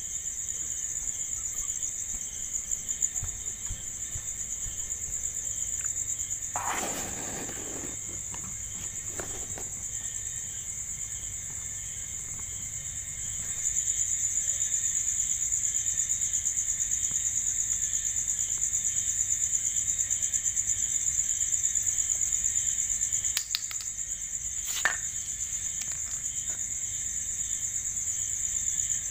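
Crickets trilling steadily, a high continuous pulsing chorus, with a brief burst of noise about seven seconds in and a short sharp click near the end.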